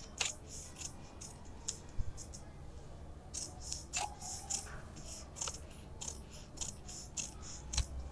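Large tailor's shears cutting through brown pattern paper: a run of short, crisp snips with a lull of about two seconds early on, then steady snipping again.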